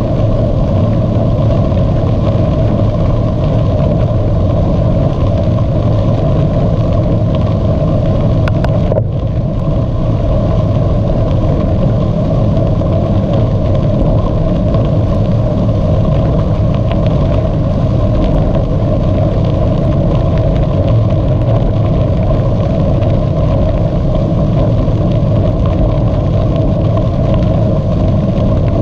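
Steady rushing noise from a bicycle ride: wind on the camera's microphone and the tyres rolling. It runs loud and even, with a brief dip about nine seconds in.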